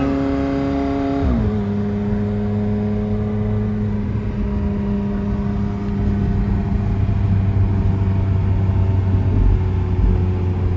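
McLaren 720S twin-turbo V8 pulling the car along, heard from inside the cabin. About a second in its note drops sharply in pitch as it shifts up, then holds a steady lower note that grows a little louder from about six seconds.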